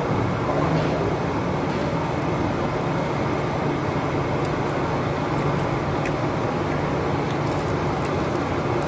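Steady rumbling background noise of a restaurant dining room, with a low hum and a few faint light clicks.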